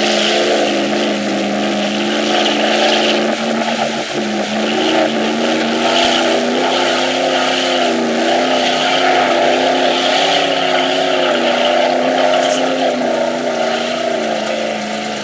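Chevy truck engine held at high revs, its pitch wavering slightly up and down without letting off.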